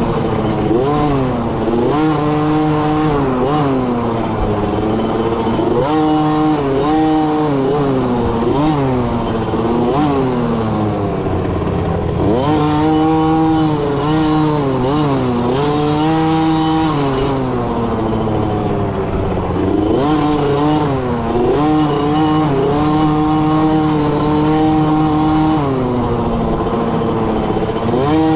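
Small youth dirt bike engine heard from on board while riding, its pitch rising and dropping back again and again as the throttle is opened and eased, with a few longer stretches held at a steady speed.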